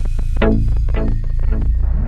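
Background music: an electronic track with a steady deep bass throb and a quick run of short, decaying notes.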